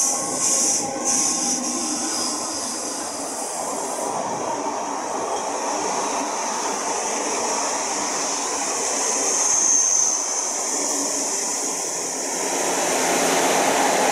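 Electric-hauled passenger train running in alongside the platform: a steady rumble of wheels and coaches over the rails, with a high squeal from the wheels that is strongest about ten seconds in.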